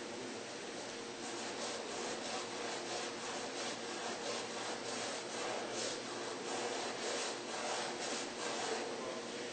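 A hand tool rubbing and scraping on a piano's wooden inner rim in quick, evenly repeated strokes, cutting the bevel where the soundboard joins the rim.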